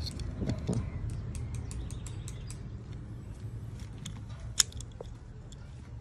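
Light clicks and small rattles of hands handling an opened Samsung washing-machine lid-lock assembly, its plastic housing and parts knocking together, with one sharp click about four and a half seconds in.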